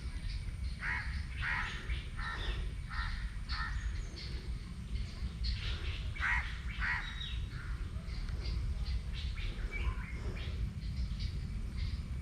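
Crows cawing again and again in short runs of calls, over a steady low rumble.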